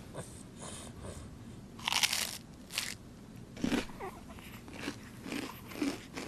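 A woman crunching into toast, several separate bites, heard from a TV advert's soundtrack.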